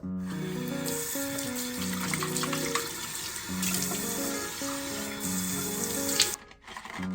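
Water running from a tap into a sink, a steady splashing hiss that stops suddenly about a second before the end, over gentle background music.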